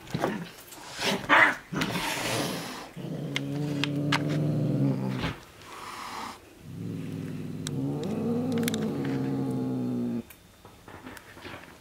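A cat growling: two long, low growls, the second a little over three seconds long and wavering in pitch partway through, after a few seconds of scuffling and rustling.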